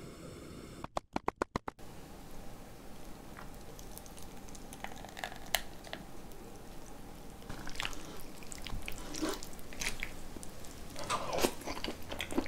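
A quick run of about seven clicks about a second in, like a portable gas stove's igniter being sparked, then scattered light taps. From about two-thirds of the way through, noodles in cold soy-milk broth (kongguksu) are slurped and chewed.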